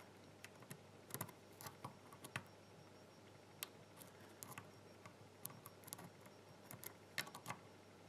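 Faint, irregular small clicks of a metal pick pressing the spring-loaded pins of a Kensington tubular laptop lock one by one during single-pin picking, with near silence between them.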